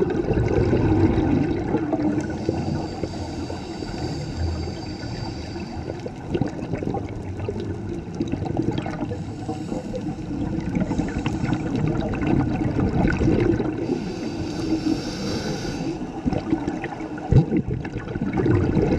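Muffled rushing and gurgling of water heard underwater, with stretches of higher hiss and a single sharp knock near the end.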